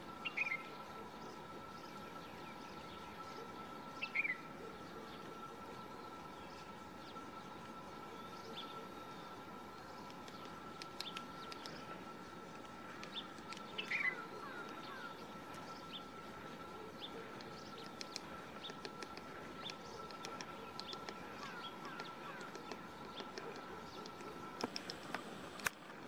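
A woodpecker taps on tree bark in scattered, irregular taps, mostly in the second half. A bird gives a few short descending calls, about a second, four seconds and fourteen seconds in. A faint steady high tone runs underneath.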